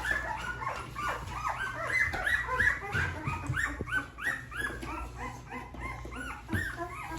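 Two-week-old American Bully puppies whining, a rapid string of short high-pitched cries, several a second and overlapping.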